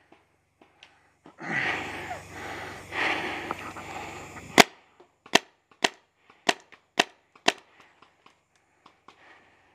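Magfed paintball marker firing six sharp shots about half a second apart, the first the loudest. Just before, a few seconds of rough noise.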